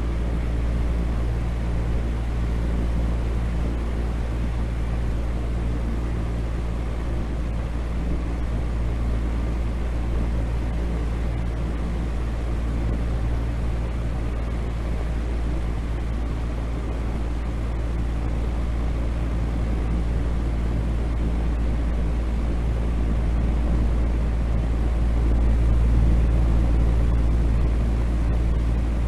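Steady, low rumbling drone with a faint hum in it and a lighter hiss on top, unbroken throughout, used as a sleep noise track.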